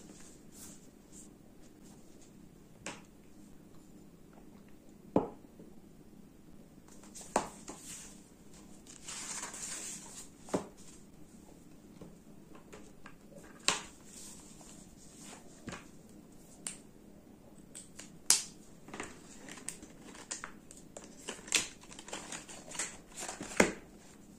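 Paperback book pages being handled and turned, with soft paper rustling about nine seconds in and scattered light clicks and taps of hands and objects on the marble tabletop.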